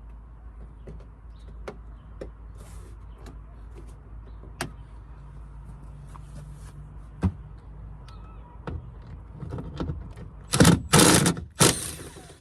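Impact gun with a 10 mm socket hammering out a door-panel screw in three short bursts near the end, after scattered clicks of the socket and screws being handled over a steady low hum.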